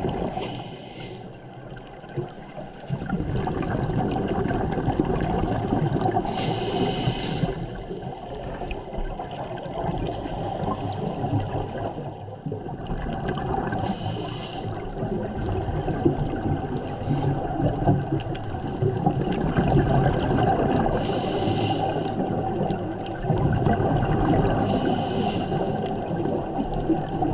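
Underwater scuba breathing through a regulator: short hisses of inhalation every several seconds, between long bubbling exhalations that rush and gurgle continuously.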